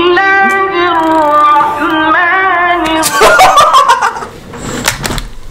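A high voice holds long, wavering notes for about three seconds, then a man bursts out laughing.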